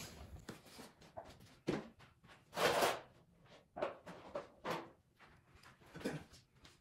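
Scattered handling noises: light knocks and clunks of objects being picked up and set down while fetching a funnel, with a brief rustle or scrape a little before the middle.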